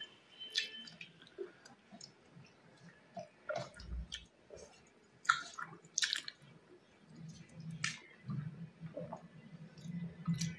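Close-miked chewing and wet mouth smacks of a person eating rice and curry, heard as scattered sharp clicks with pauses between bites. A low steady hum comes in about seven seconds in.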